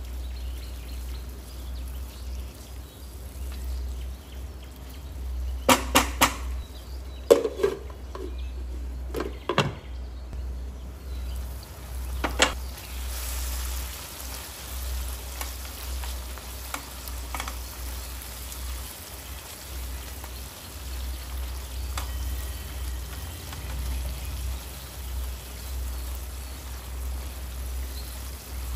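Food frying in a pan, a steady sizzle with a few sharp knocks of a utensil against the pan in the first half. The sizzle turns brighter a little before halfway, over a steady low hum.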